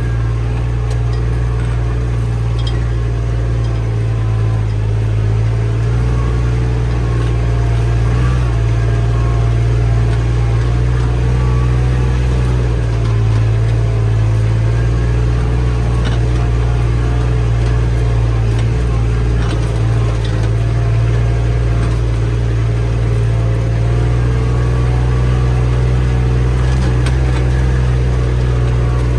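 A motor vehicle engine running steadily and close by, with a low hum that shifts in pitch and strength a few times.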